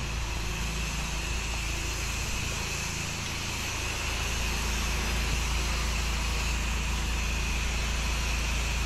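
8 gpm pressure washer running steadily: a constant engine hum under the hiss of its water jet spraying house siding.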